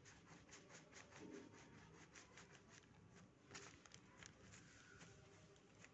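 Near silence, with faint, irregular soft taps and rubbing of hands kneading soft flour dough on a worktop.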